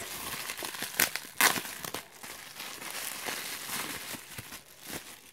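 Clear plastic packaging crinkling and rustling in the hands as it is handled and opened, with two sharper crackles about a second and a second and a half in.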